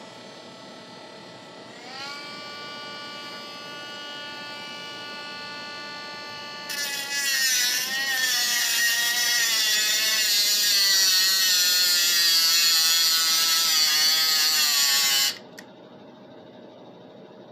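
Cordless metal-cutting saw: the motor spins up to a steady whine about two seconds in, then around seven seconds in the blade bites into metal, a loud harsh cutting noise with the motor's pitch wavering under load, which cuts off suddenly near the end.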